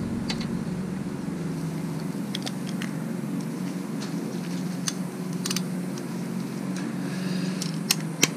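Scattered sharp clicks and taps of hand tools as an 8 mm socket is fitted to the oil filter cover bolts, over a steady low hum.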